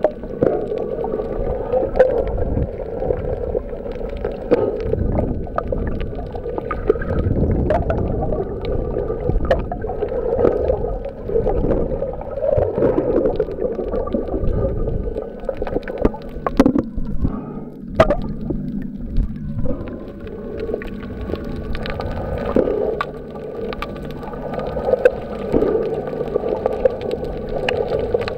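Muffled underwater sound picked up by a submerged camera: water sloshing and gurgling, with scattered clicks and knocks as fishermen move about and handle a net in shallow water.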